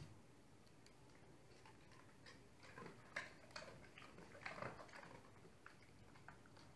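Near silence with faint, scattered small clicks and smacks, bunched in the middle few seconds, from a Great Pyrenees nosing and licking at the floor.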